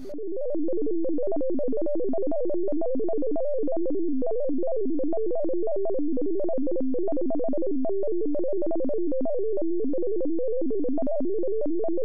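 Computer-generated tones playing a fast, unbroken run of notes that step up and down within about an octave, many notes a second, each blending into the next: the digits of pi sounded as notes of a C major scale.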